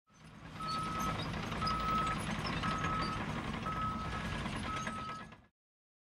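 Heavy vehicle's reversing alarm beeping five times, about one beep a second, over a steady engine noise; it fades in and cuts off about five and a half seconds in.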